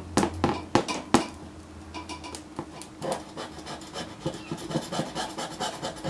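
An LCD panel crackling and popping as it burns under microwave-oven-transformer arcing: a few sharp pops in the first second over a low hum that fades out, then a run of faster, fainter crackles and ticks.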